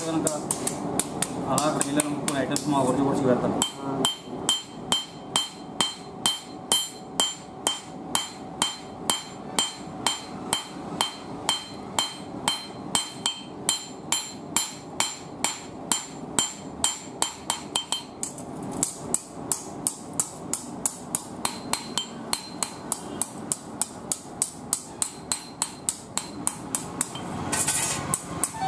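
Hand hammer striking a hot steel billhook blade on an anvil in a steady run of blows, about three a second, each with a ringing metallic note: the blade being forged into its curved shape.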